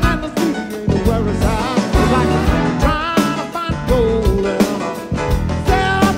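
Live band playing an upbeat piano-driven song with drum kit and bass and a steady beat, heard as the musicians' in-ear monitor mix with very little crowd noise.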